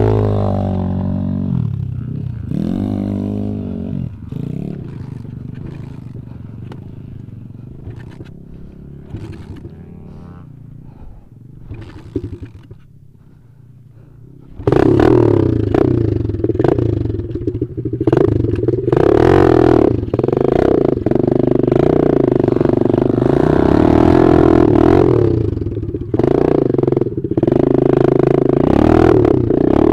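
Dirt bike engine pulling away and fading into the distance over the first dozen seconds. About halfway through, a second dirt bike engine comes in suddenly, loud and close, running at steady revs under riding load, with a short dip in revs near the end.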